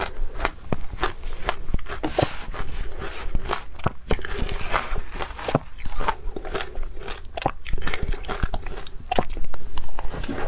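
Close-miked crunching and chewing of powdery ice coated in matcha powder: a dense, irregular run of crisp crunches as each bite is broken up.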